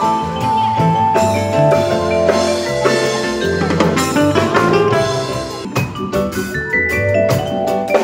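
Live band music led by a vibraphone, its mallet-struck notes ringing on over a drum kit and guitars.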